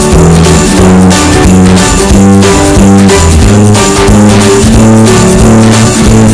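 Background music with guitar and a steady percussion beat.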